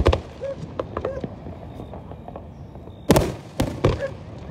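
Aerial fireworks shells bursting. A bang at the very start, then scattered fainter pops, then three loud bangs in quick succession about three seconds in.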